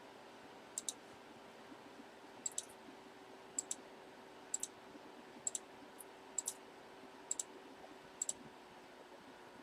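A computer mouse button clicked eight times, about once a second, each click a quick sharp double tick. It is a randomizer being run eight times.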